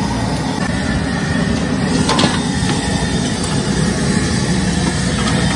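Street-stall deep-frying: kachoris bubbling in a large kadhai of hot oil over a steady low rumble. A single sharp knock comes about two seconds in.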